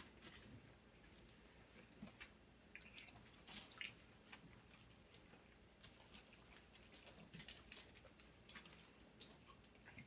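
Faint eating sounds: soft chewing with scattered small clicks and smacks, several in quick clusters.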